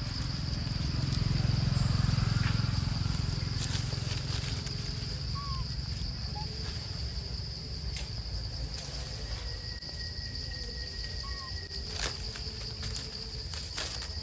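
Steady high-pitched insect drone over a low rumble that swells in the first few seconds. Scattered clicks and rustles, and two brief faint chirps, one near the middle and one later.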